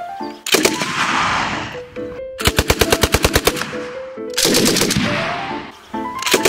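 .303 Hotchkiss Model 1909 portable machine gun firing four short bursts at about ten shots a second, over background music.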